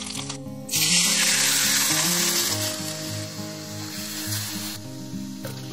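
Curry leaves and dried red chilli tempering in hot oil in a steel kadhai, sizzling loudly when the moong broth is poured in about a second in, then fading over the next few seconds. Background music plays underneath.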